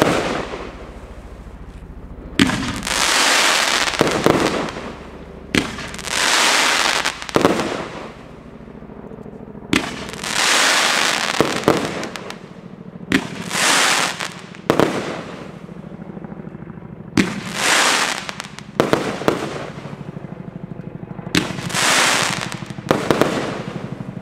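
Evolution Fireworks 'The Branco' consumer fireworks cake firing: about a dozen shots, each a sharp bang as it bursts overhead followed by roughly a second of loud hiss from the breaking stars. The shots come every couple of seconds, at times two close together.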